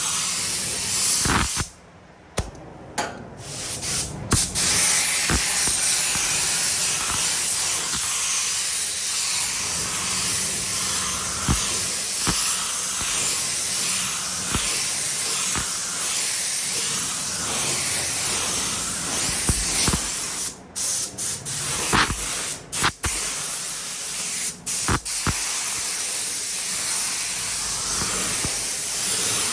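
Compressed-air paint spray gun hissing steadily as paint is sprayed onto a car body. The hiss cuts off sharply as the trigger is let go: once for about two seconds near the start, and several brief times between about twenty and twenty-five seconds in.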